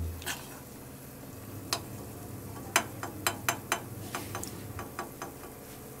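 Ground pepper simmering in desi ghee in an aluminium pan on a gas burner: a faint steady sizzle with scattered sharp clicks, several of them in quick succession about three seconds in.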